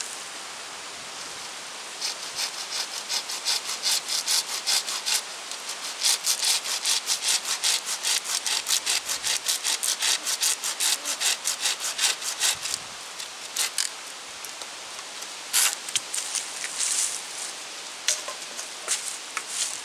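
A hand saw cutting through a green wooden fence pole with quick, rhythmic back-and-forth strokes, about three a second. The strokes stop about two-thirds of the way through, and a few single strokes follow near the end.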